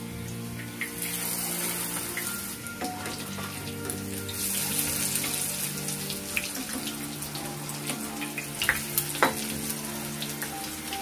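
Batter-coated stuffed teasel gourds frying in hot mustard oil in a shallow pan: a steady crackling sizzle that thickens about a second in. Near the end, a slotted spoon knocks against the pan a couple of times with sharp clicks.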